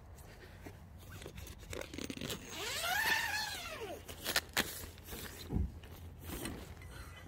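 Zipper on a tent door pulled in one long stroke whose pitch rises and then falls as the pull speeds up and slows, followed by two sharp clicks, over rustling of the tent fabric.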